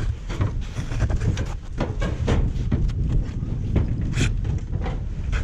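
Rustling and scraping of a protective suit's mesh veil hood rubbing against the microphone, over a low rumble of handling noise.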